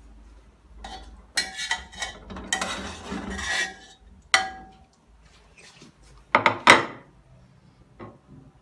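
Kitchen utensils and dishes clinking and scraping while food is served. The loudest sharp knocks come a little past the middle.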